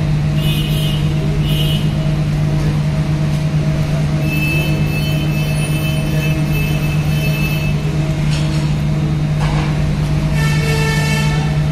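A large engine running steadily, a deep even drone that never changes. Two short high beeps come early, and two horn toots sound near the end.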